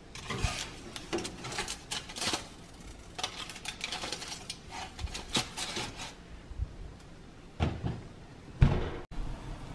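Clattering and scraping of a foil-lined baking tray being slid onto an oven's wire rack, with light clicks of metal on metal. Near the end come two low thumps, the louder one as the oven door is swung shut.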